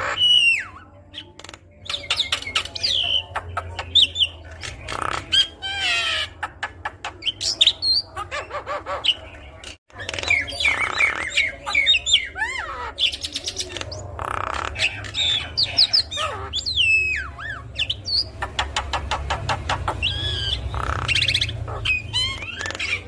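Javan myna singing a long, varied song: gliding whistles, rapid clicking rattles and harsh squawking calls, with a brief break a little under halfway through.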